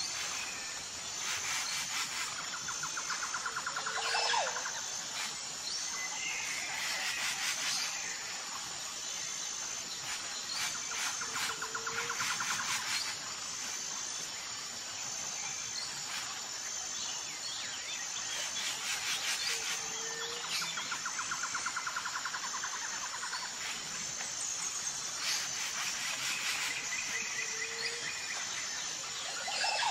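Outdoor nature ambience: birds chirping and calling over a steady high insect buzz. The same bird phrases come back about every eight seconds.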